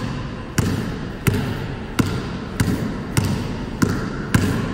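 Basketball dribbled on a hardwood gym floor in a slow between-the-legs, crossover, behind-the-back combination, about one and a half even bounces a second, each bounce echoing in the gym.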